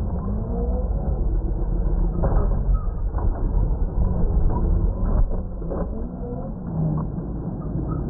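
Traxxas X-Maxx electric RC monster truck running hard on dirt: its brushless motor whines, rising and falling with the throttle, over a rumble of tyres through loose dirt, with several short knocks from the chassis and suspension.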